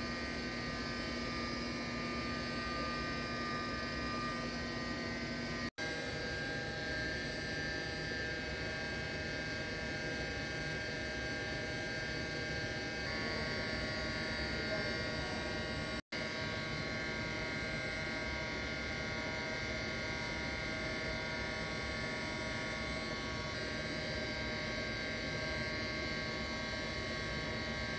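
Steady machinery hum with several constant tones, from running HVAC equipment beside the chilled-water piping. It drops out for an instant twice.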